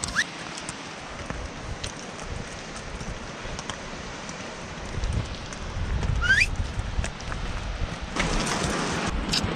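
Wind noise on the microphone over the faint clicking of horse hooves on a stony trail, with a short rising whistle about six seconds in and a louder rush of noise near the end.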